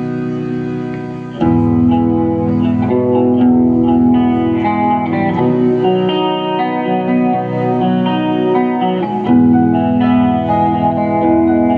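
Live rock band playing an instrumental passage: a held keyboard chord, then about a second and a half in the full band comes in, with electric guitar playing a melody over it.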